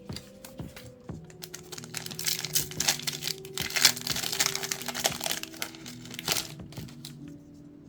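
Plastic booster-pack wrapper crinkling as it is handled and torn open, densest from about a second and a half in until near the end, over faint background music.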